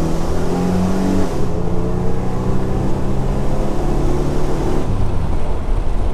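1997 Camaro's 3.8-litre 3800 Series II V6 accelerating hard through a Walker Sound FX 18235 muffler, heard from inside the cabin with the window down. The exhaust note climbs, steps down about a second and a half in, holds steady, then eases off near the end.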